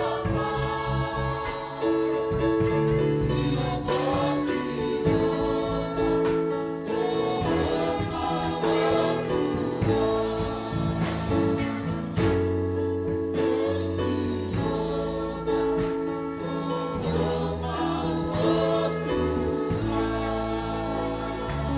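Tongan gospel song: a male lead singer sings through a microphone and PA, with female backing singers. The accompaniment is held bass notes that change every couple of seconds.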